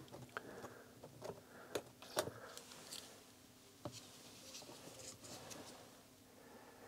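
Faint handling noises: scattered light clicks and taps of small tools or parts being picked up and put down, with a couple of sharper taps about two seconds in.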